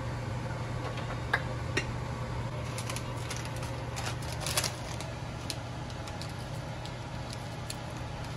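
A plastic packet being opened and handled, crinkling and clicking in scattered bursts, busiest in the middle, over a steady low hum.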